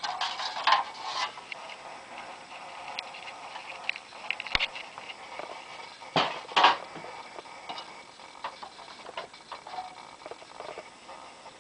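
Stacked metal street-name signs clattering and scraping against each other as they are flipped through. The sharpest clanks come near the start and twice about six to seven seconds in.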